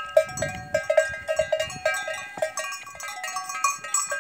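Metal cowbells worn by walking cattle, clanking rapidly and unevenly with a few strikes every second. Several bells of different pitches ring together.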